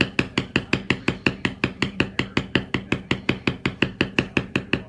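Rapid, evenly paced taps of a mallet on a leather stamping tool, about six or seven strikes a second, stopping near the end.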